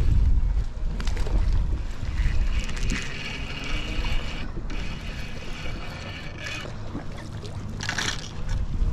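Wind buffeting the microphone on a boat out on the water, with a steady low rumble and gusts strongest at the start. A short rush of noise comes near the end.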